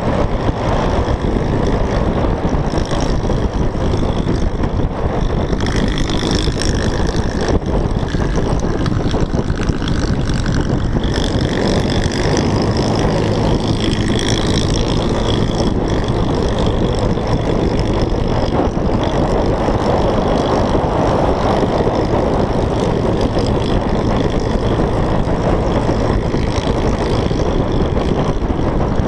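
Steady wind rush buffeting the microphone of a scooter riding at speed, mixed with the scooter's engine running.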